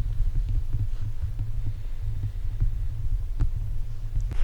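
Low, gusty rumble of wind buffeting the microphone, with a few faint clicks.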